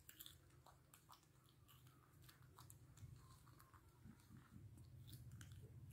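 Faint crunching and chewing of raw cucumber by a baby macaque: a scatter of small crisp clicks over a faint low hum.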